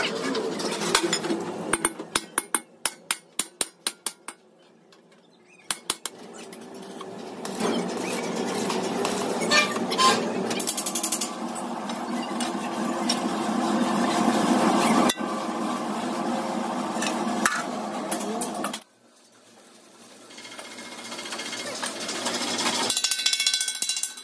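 Metalworking shop noise cut together from short clips. First comes a quick run of about ten sharp blows on metal, about four a second. Then there is a long stretch of steady machine noise that stops suddenly, and noise builds again near the end.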